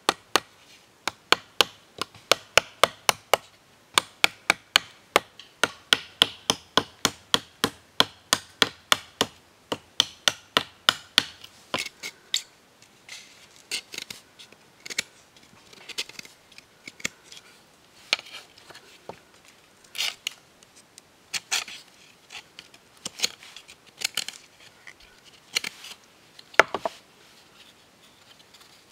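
Machete blade chopping and notching a green bamboo tube, a fast run of sharp strikes about three a second for the first twelve seconds, then slower, scattered cuts.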